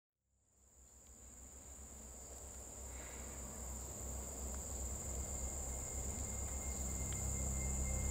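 A steady, high-pitched drone of insects chirring, fading in from silence and slowly growing louder over a low, steady rumble.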